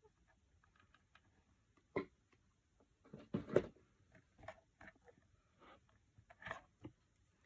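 Scattered light taps and knocks of cardboard being handled and pressed together while a hot-glued slide is fitted, a few seconds apart, with a small cluster of knocks about halfway through.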